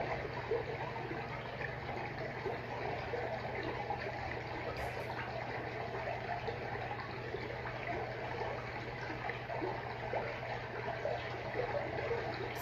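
Freshwater aquarium water trickling and bubbling steadily over a low, even hum.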